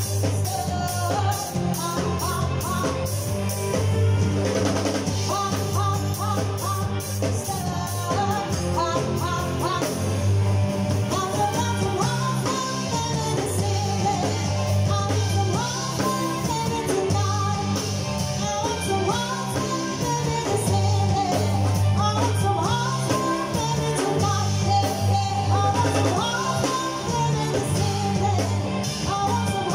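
Live band playing a song, a woman singing lead over electric bass guitar, drum kit and keyboard.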